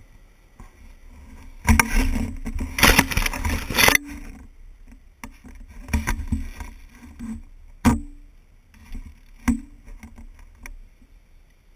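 Handling noise from a GoPro camera on a handheld pole: about two seconds of loud rubbing and scraping as the pole is turned, then a few sharp knocks on the mount as it is carried along.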